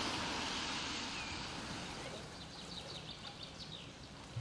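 Steady outdoor noise that fades slowly, with a quick run of short, high chirps past the middle.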